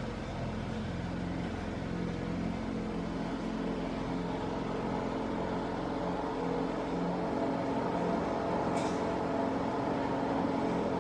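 Steady mechanical hum with several held tones, and a single short click near the end.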